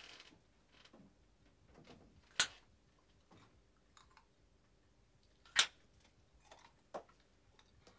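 Sharp clicks and knocks of a kitchen cupboard being opened and rummaged in. There are two loud clicks about three seconds apart, a softer knock a little over a second later, and faint small knocks between them.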